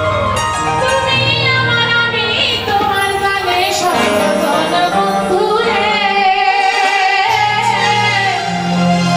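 A woman singing a Sylheti dhamail folk song into a microphone, amplified, with electronic keyboard accompaniment. Her voice wavers and slides between held notes over sustained keyboard chords.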